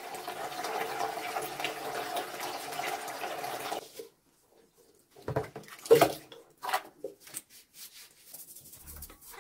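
Tap water running steadily into a sink, then shut off after about four seconds. After a short pause come several scattered knocks and clatters of objects being handled.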